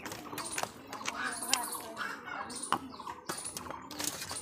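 Eating by hand from stainless steel plates: rice and curry squished and scooped with the fingers, with scattered light clicks as fingers and nails tap the metal.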